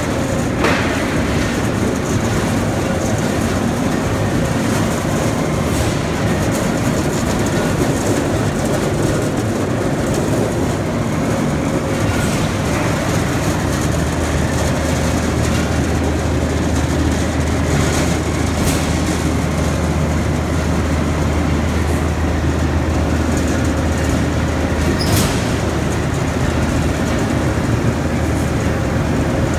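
Bradbury / Herr Voss steel-coil cut-to-length line running: a loud, steady machinery drone with a constant hum. A deeper hum comes in about halfway through, and there are a few sharp clicks.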